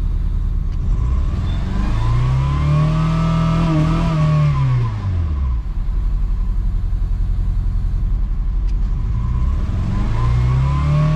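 Honda Civic engine running on its first start after a single-piston replacement, revved up and let back down twice: a rise and fall in pitch lasting about four seconds, then a second rev near the end.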